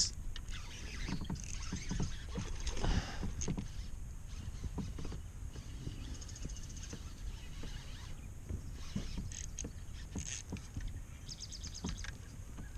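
Handling noises aboard a fishing kayak: scattered knocks and rustles against the hull and gear, with short runs of quick clicks about six seconds in and again near the end.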